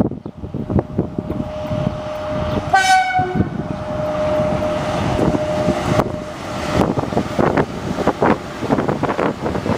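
EP1M AC electric locomotive and its passenger train passing, wheels clattering over rail joints and points. About three seconds in the locomotive's horn sounds with a short bright blast, and a steady tone holds for a few seconds after it.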